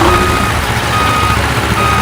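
Reversing alarm beeping: a single steady tone repeating a little faster than once a second, three beeps in all, over a low steady rumble.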